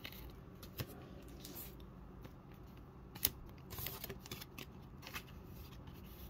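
Trading cards being slid into plastic card sleeves: faint rustling and scraping of card and plastic with a few light clicks, one sharper click a little over three seconds in.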